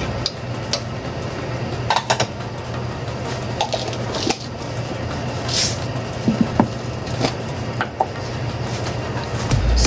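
Metal ladle stirring soup and clinking against the pot, followed by scattered light clicks and knocks, over a steady low hum.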